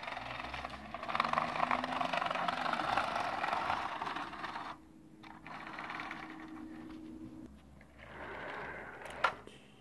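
Vintage Jouef and Lima model train coaches rolling over sectional toy track, pushed by hand because the locomotive has no transformer: a steady clattering rattle of wheels on the rails for about five seconds, quieter for a few seconds, then rising again briefly, with a few sharp clicks near the end.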